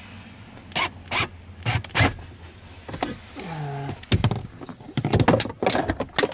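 Ratchet and socket loosening an 8 mm bolt on a Ford F-150's blower motor resistor: irregular metallic clicks and knocks, more of them in the second half. About three and a half seconds in there is a brief pitched sound that falls and then holds.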